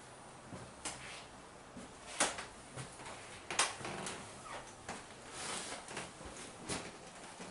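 Several sharp knocks and clicks spaced a second or so apart, over low room tone in a small room.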